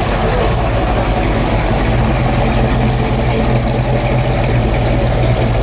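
Chevrolet Chevelle Malibu's engine and exhaust running steadily at a slow crawl, a deep low note with no revving.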